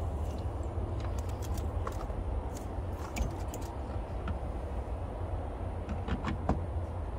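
Scattered light plastic clicks and taps as a wiring harness with snap-in connectors is handled and a replacement Yamaha outboard tachometer is pushed into its opening in the boat's console panel, in small clusters about a second in, around three seconds in and around six seconds in. A steady low rumble runs underneath.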